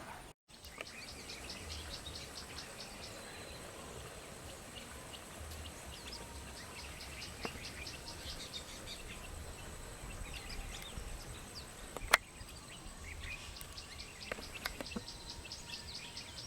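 Small birds giving short, repeated chirping calls over a steady high-pitched insect hum, with one sharp click about twelve seconds in.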